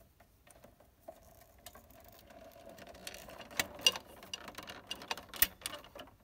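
Ethernet cables rustling as they are handled, with a few sharp clicks, the loudest about four and five and a half seconds in, as an RJ45 plug is pushed into a switch port.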